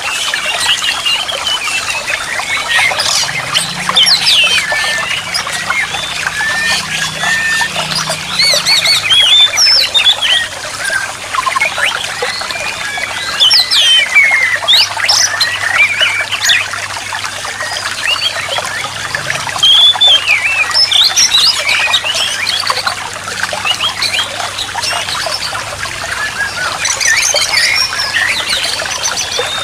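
Many birds chirping and calling rapidly and continuously in overlapping short notes and quick pitch glides, over a steady trickle of running water.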